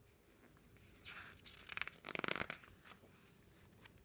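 Soft rustle of a picture book's paper page being turned by hand, one light rustle about a second in, then a louder rustle and swish around two seconds in.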